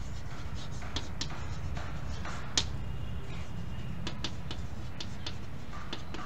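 Chalk tapping and scratching on a chalkboard as words and a graph are written, a string of short sharp clicks with the loudest about two and a half seconds in. A steady low rumble runs underneath.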